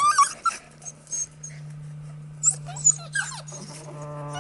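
Border Collie puppies squealing and whimpering in play: a burst of high, sliding squeals at the start, and more falling yelps about two and a half to three seconds in, over a steady low hum.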